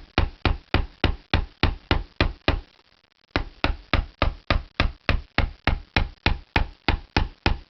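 Rapid, even metallic knocks, about four a second, with a short pause about three seconds in: a screwdriver being tapped along the metal lip of a VW Beetle running board to prise it away from the rubber cover.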